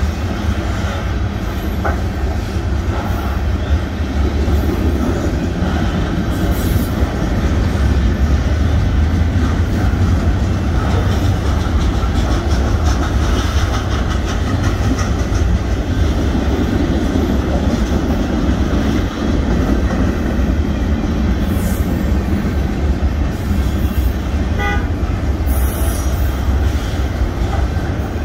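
Union Pacific freight train's cars rolling past, a steady low rumble with the wheels clacking over the rail joints. A few brief high wheel squeals cut in.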